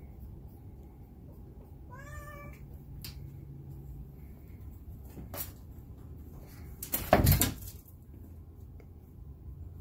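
A domestic cat meows once, a short call that rises and falls, about two seconds in. A few faint clicks follow, then a loud, short knock about seven seconds in.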